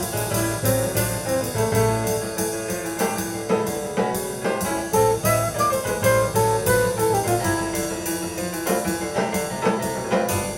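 Jazz music with brass and piano over a drum beat, reproduced through a Fisher CA-800 stereo amplifier as a test sound sample.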